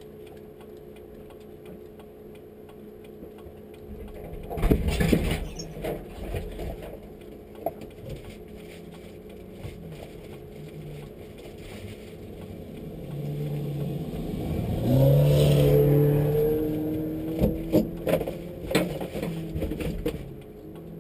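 A rally car goes past at speed on the gravel stage road, its engine swelling, then dropping in pitch as it passes and draws away. Sharp clanks and knocks come about a quarter of the way in and again near the end.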